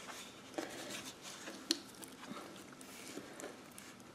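Faint sticky squishing and small clicks of clear slime with gold flakes being folded and kneaded by hand, with one sharper tick a little under two seconds in.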